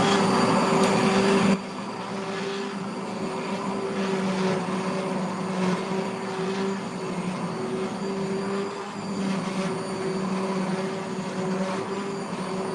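Hand-held immersion blender running in a pot of thick potato soup: a steady, even-pitched motor whir with the blade churning the soup. It becomes noticeably quieter about a second and a half in, then runs on evenly.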